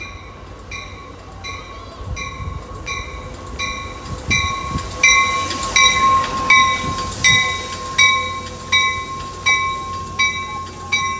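Brass warning bell on an Amtrak California bilevel cab car ringing steadily, one strike about every 0.7 seconds, growing louder about four seconds in as the train pulls into the platform. The rumble of the passing train runs underneath, with a steady high whine.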